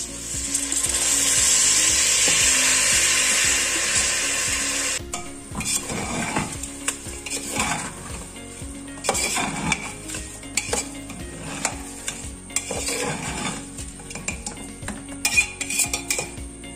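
Soaked rice hitting the hot oil and fried chicken in an aluminium pressure cooker, sizzling loudly and evenly for about five seconds until it cuts off suddenly. Then a steel spatula stirs and scrapes the rice around the cooker, with repeated scraping strokes, clinks against the metal and lighter sizzling.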